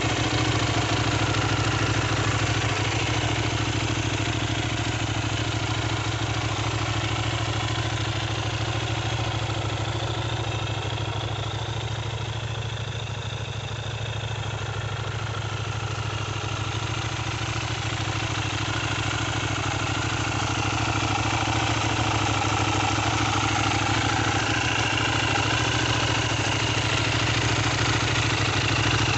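Benelli 752S parallel-twin motorcycle engine idling steadily. Its loudness dips a little midway and comes back up.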